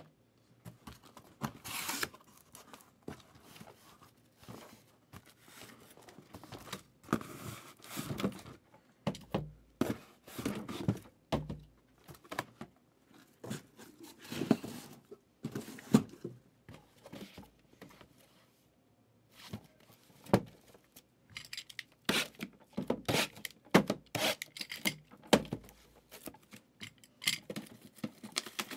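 Cardboard shipping case being torn open and its sealed hobby boxes taken out and handled: irregular tearing and rustling of cardboard and tape, with sharp knocks as boxes are set down.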